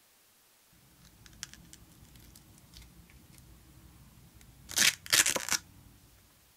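A hook-and-loop sanding disc being peeled off its backing pad: a loud ripping sound in two quick pulls about five seconds in, after some light handling clicks.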